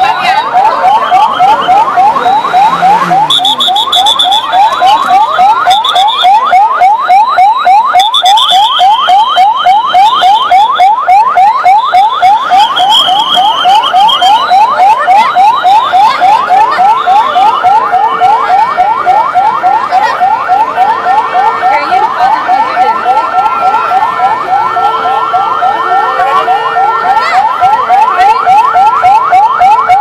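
Several sirens sounding at once: a fast yelping siren sweeping up and down several times a second, with slower wailing sirens rising and falling over it. A little past halfway, steady held tones join in.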